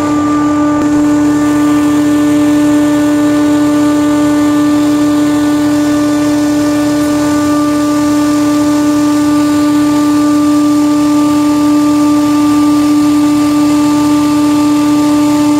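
A loud, steady machine hum: one strong low tone with several fainter higher overtones.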